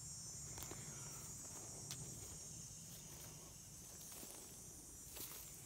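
A few faint footsteps on a dirt forest trail, over a steady high-pitched insect chorus.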